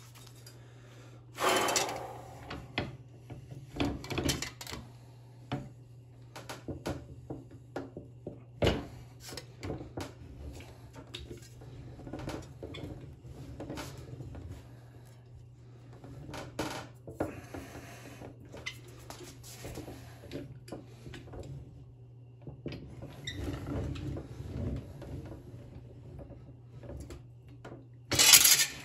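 Thin sheet steel being handled and curled into a cylinder on a hand-cranked slip roll: irregular clanks, rattles and scrapes of the metal against the rollers, with a loud clank near the end. A steady low hum runs underneath.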